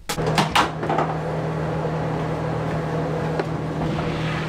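A steady mechanical hum over a hiss, as of a motor or fan running. It starts suddenly, with a few knocks in the first second.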